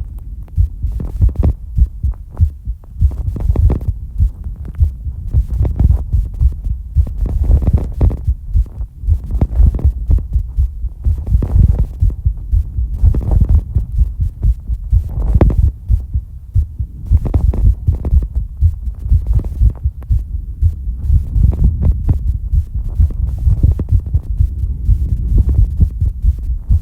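A person's heartbeat, beating fast at about two beats a second, its pace raised by exercise and a breath-hold. Each beat is a deep thump.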